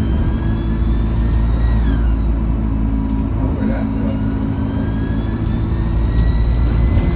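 Alexander Dennis Enviro200 single-deck bus's diesel engine pulling under acceleration, with a high turbo whine that climbs in pitch, falls away about two seconds in, then climbs again through the rest.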